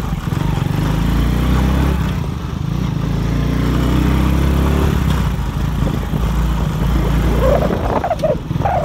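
Motorcycle engine running steadily while riding along a road, with a dog barking near the end.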